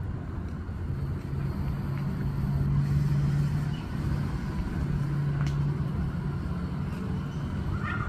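A motor engine running nearby: a low, steady hum that swells twice.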